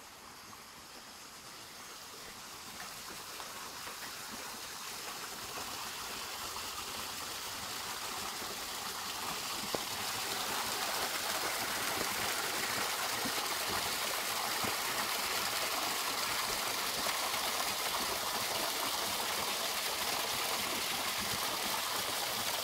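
Rainwater stream running through a culvert under a road: a steady rush of water that grows louder over the first ten seconds or so, then holds steady.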